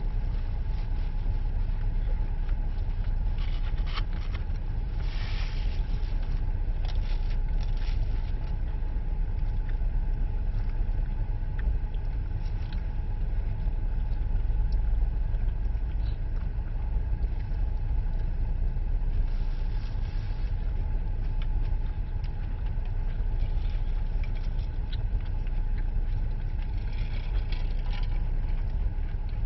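Steady low rumble of a car, heard from inside the cabin, with a faint steady hum and a few small clicks.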